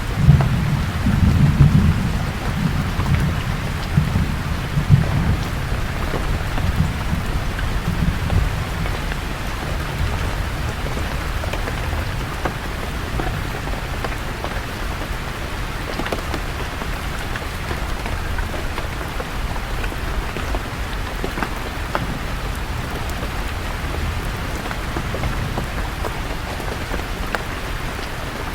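Steady rain falling on forest leaves, with a low rumble of thunder in the first several seconds that fades away.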